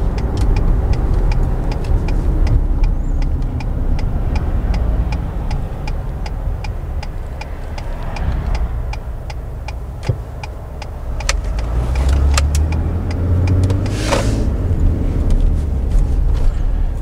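Ford F-150 pickup heard from inside the cab while driving slowly: steady road and engine rumble, with a turn signal ticking about three times a second through the first half. The engine pulls harder and the rumble grows louder for the last few seconds.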